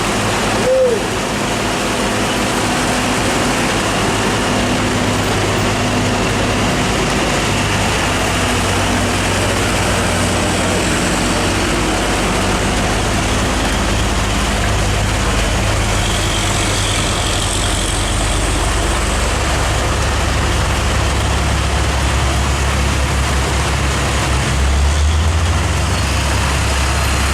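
Hino truck's diesel engine running with a steady low drone that steps up in pitch near the end, under the hiss of heavy rain. A short squeal about a second in.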